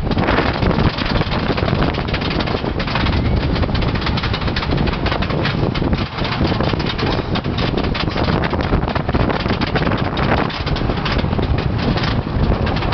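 Magnus Colossus wooden roller coaster train rattling along its track, a continuous dense clatter with wind buffeting the microphone.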